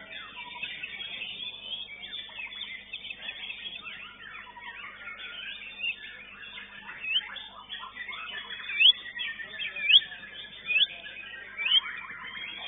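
Many caged songbirds singing together in a dense chorus of chirps and trills, with one nearby bird giving a series of about six loud, sharp upward-sweeping whistles in the second half.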